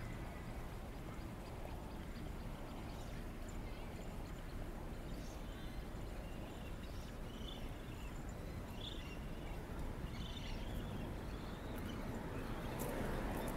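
Footsteps of someone walking, over steady outdoor background noise, with a few faint bird chirps in the middle. The background noise grows louder near the end.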